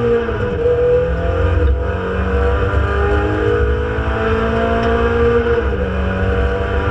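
Renault Clio Sport 2.0 182's four-cylinder engine heard inside the race car's cabin, pulling hard under acceleration. The engine note drops at an upshift about half a second in, climbs steadily, then drops at another upshift near the end.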